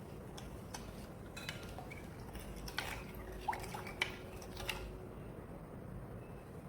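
Kitchen utensils and dishes clinking and knocking, a scatter of light hits between about one and five seconds in, some of them ringing briefly.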